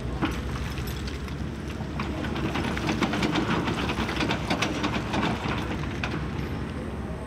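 Kobelco SK260-10 crawler excavator's diesel engine running steadily, with a dense run of clattering knocks from about two to six seconds in as stone and spoil rattle against steel.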